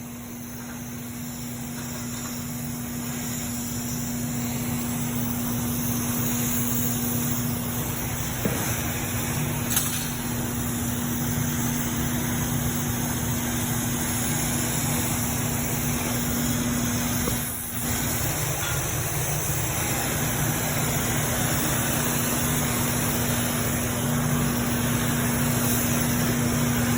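Oxyacetylene welding torch flame hissing steadily during an uphill weld on an inside corner joint, with a steady low hum underneath. The sound builds over the first few seconds and then holds, dropping briefly once about two-thirds of the way through.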